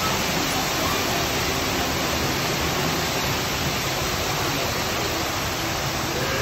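Steady rushing of water, like a waterfall, even and unbroken.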